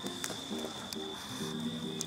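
Soft instrumental background music of held low notes that change step by step, with a thin steady high tone and scattered sharp clicks over it.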